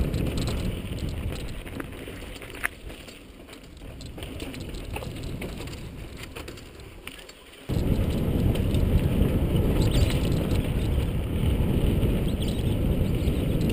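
Rumbling ride noise of a mountain bike on a dirt trail, picked up by a helmet-mounted camera: tyre and frame rattle with buffeting on the microphone. It grows quieter about a second in, with one sharp click, then jumps back loud suddenly about eight seconds in.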